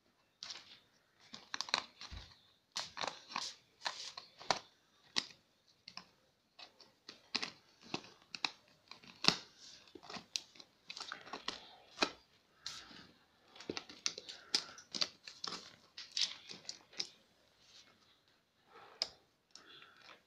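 Snap-off utility knife slitting the packing tape on a cardboard box, with the tape tearing open: many short, irregular cutting strokes with brief pauses between them.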